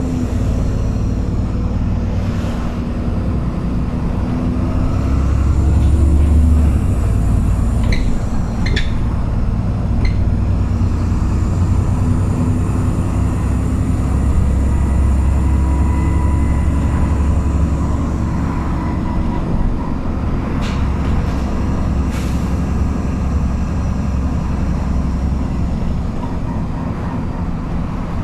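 Ride noise inside a Dennis Trident 2 double-decker bus with an Alexander Dennis Enviro400 body, heard from the upper deck while under way: a steady low engine and drivetrain drone with road noise. The drone swells for a second or two about five seconds in. A few short sharp clicks come about eight to ten seconds in and again past twenty seconds.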